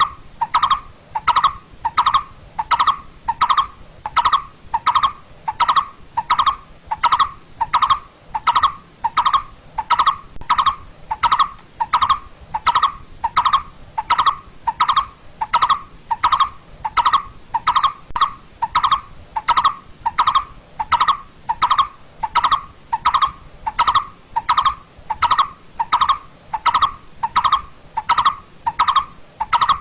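Coppersmith barbet calling: a steady run of single 'tuk' notes, evenly spaced at about two a second.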